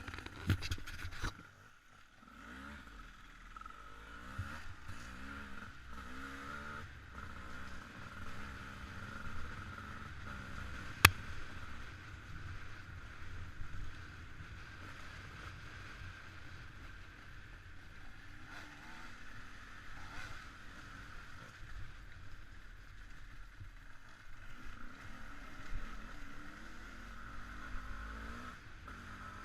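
Off-road motorcycle engine running, its pitch rising and falling as the throttle is worked, with one sharp click about eleven seconds in.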